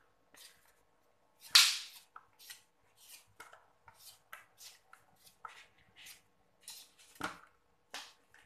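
Vegetable peeler scraping the skin off an unripe green mango in quick repeated strokes, about two a second. Two louder sharp strokes stand out, one about a second and a half in and one near the end.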